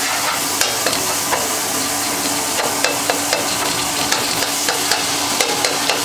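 Food sizzling as it fries in hot ghee in an aluminium pot, while a slotted metal spatula stirs and scrapes it, with frequent irregular clinks of metal against the pot.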